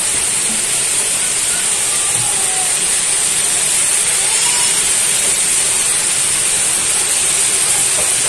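A loud, steady hiss with no breaks.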